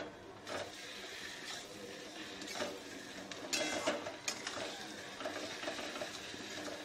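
A spatula scraping and clicking against a cooking pan, with irregular strokes about once a second, as spice paste is stirred into fried onions.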